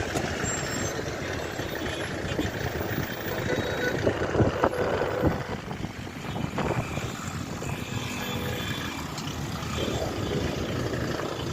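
Street traffic: vehicle engines running steadily, with a few sharp knocks about halfway through.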